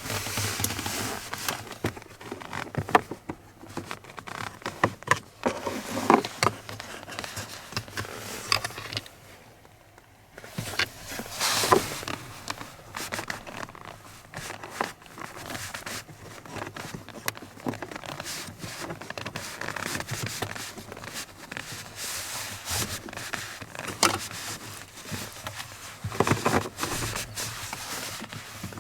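Hands working at a Volvo V50's interior plastic trim and cabin air filter: irregular scraping and rustling with sharp clicks and knocks.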